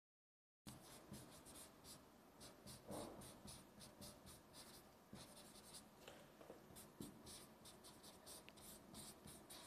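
Chalk writing on a blackboard: faint, quick, irregular scratches and taps of the chalk, beginning about half a second in after a moment of complete silence.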